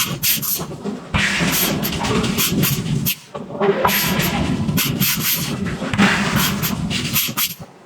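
Loud heavy forging machinery running with a low drone, hissing and repeated sharp clanks, easing off briefly about one second in, about three seconds in, and near the end.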